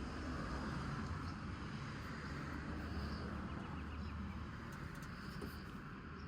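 Steady outdoor background noise with a low hum, and a short run of faint high chirps a little past halfway.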